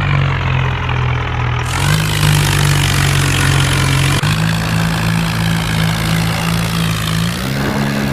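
Heavy diesel engine running steadily, as on a bulldozer, its note stepping up slightly in speed about two seconds in, again after four seconds and once more near the end.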